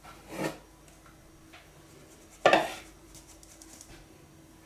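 Kitchenware knocking against a baking dish: a short knock just after the start and a louder clattering knock about two and a half seconds in.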